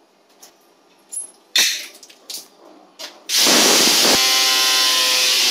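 A few light clicks and knocks, then about three seconds in a corded electric drill starts and runs steadily at speed with a motor whine, drilling through a cabinet hanging rail into the wall.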